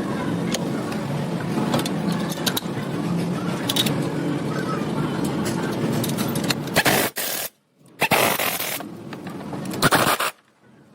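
Workshop clatter: sharp metallic clicks and scraping over a steady noisy background. It breaks off briefly near the end, returns, then stops.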